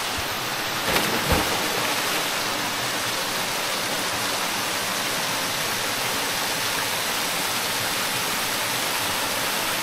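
Steady rush of small waterfalls pouring into a spring-fed pool, with a splash about a second in as a person jumps into the water.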